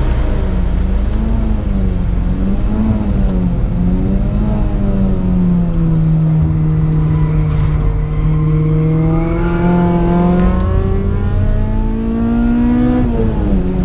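Supercharged Honda K20 four-cylinder engine heard from inside the Civic's cabin while lapping a track. The engine note rises and falls for the first few seconds, holds lower for a few seconds, then climbs steadily under acceleration and drops sharply near the end, as at a gear change, before climbing again.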